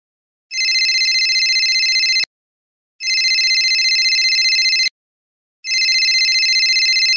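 Mobile phone ringing with a trilling electronic ringtone: three rings of about two seconds each, separated by short silent gaps, signalling an incoming call.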